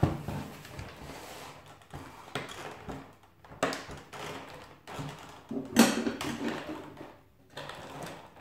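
Cardboard advent calendar compartment being pried and torn open by hand: irregular scraping, tearing and rustling, loudest about two-thirds of the way through.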